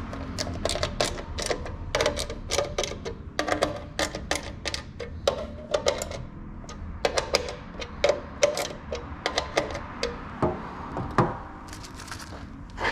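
Rapid, irregular clicks and light knocks of hard objects being handled, about two to four a second.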